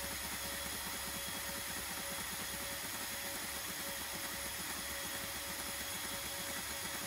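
Voron 3D printer running a print: a steady fan whir with the rapid buzzing of the stepper motors as the toolhead moves quickly back and forth.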